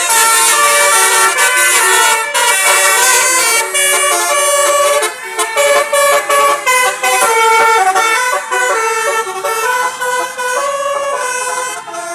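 Basuri tour bus's telolet horn, a set of air-horn trumpets, playing a quick tune of several notes sounding together and changing in steps, with a few short breaks between phrases around the middle.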